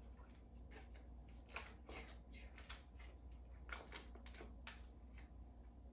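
Faint, irregular crinkling and rustling of the paper wrapper being peeled off a stick of butter.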